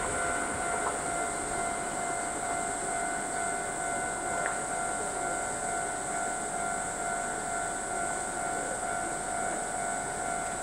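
Kintetsu express train of 1230-series cars running slowly round a curve into the station: a steady running noise with a constant whine held at one pitch.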